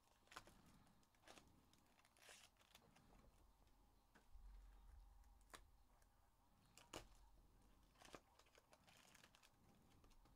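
Faint crinkling, rustling and soft clicks of foil trading-card packs being handled and torn open, in short scattered bursts about once a second.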